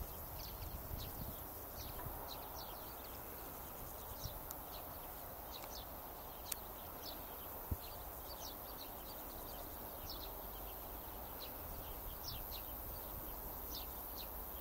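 Faint open-country ambience: a steady low rush of air with small birds chirping in short high notes, several a second, and a single sharp click about six and a half seconds in.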